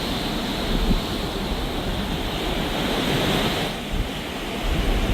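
Wind buffeting the microphone with the rush of the sea, steady apart from a brief lull about four seconds in.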